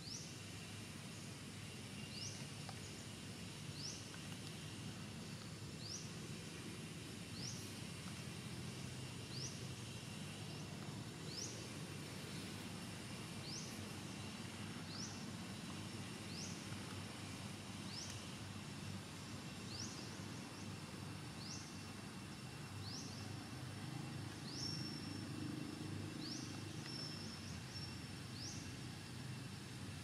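Outdoor ambience: a steady low background noise with a short, high rising chirp repeated about every second and a half.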